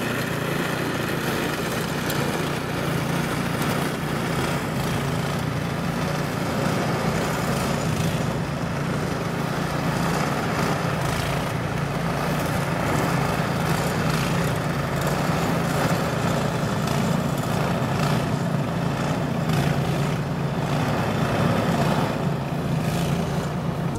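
Snowblower's small gasoline engine running steadily at a constant speed.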